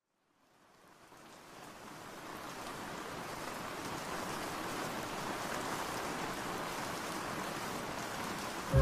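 Steady rain falling, fading in over the first couple of seconds and then holding even.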